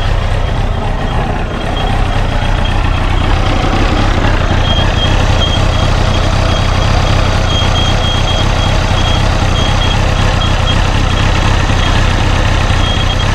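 Honda CBR929RR inline-four engine running steadily, with a thin, high-pitched metallic whine that cuts in and out from about four seconds in. The mechanic suspects a stiff, worn water pump as the cause of the noise.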